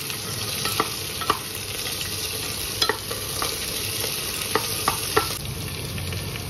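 Vegetables sizzling in hot oil and ghee in a pressure cooker while a metal spoon stirs them. The spoon clinks sharply against the pot about eight times.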